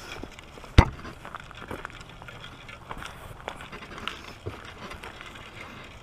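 Footsteps crunching on a gravel trail in an uneven patter, with one sharp knock about a second in.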